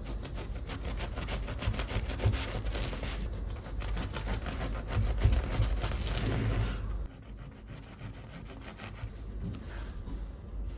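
Serrated bread knife sawing back and forth through a loaf of brown bread on a wooden cutting board: a rapid, steady rasping that stops about seven seconds in. After that come softer sounds as the slices are lifted and moved.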